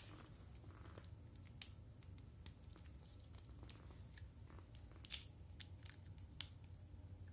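Scattered light clicks and taps of small construction-toy pieces being handled, over a low steady hum, with two louder clicks about five and six and a half seconds in.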